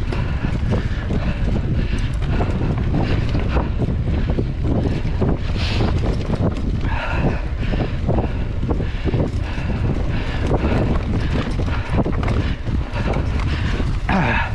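Wind rushing over the microphone of a camera on a mountain bike ridden fast along a dirt trail, with frequent small knocks and rattles from the bike over rough ground.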